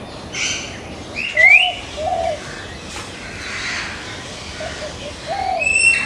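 Hill myna calling: a series of varied calls, among them a quick rising whistle about a second and a half in, several short low notes, and a high whistle near the end.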